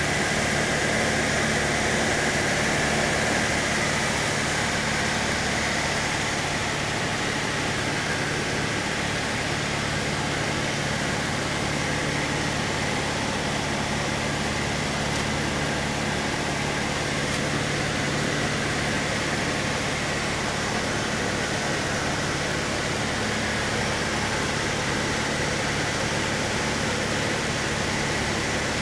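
Cessna 152's four-cylinder Lycoming engine and propeller droning steadily, heard inside the small cabin with a strong hiss of airflow; it eases slightly about five seconds in, then holds steady.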